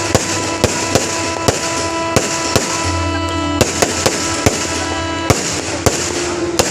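Fireworks going off in a rapid series of sharp bangs, about two a second, over music with held notes and a steady bass.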